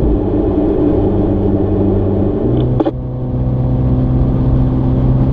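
Mini car's engine running under load inside the cabin at speed, its pitch stepping up about two and a half seconds in, with a brief click just after.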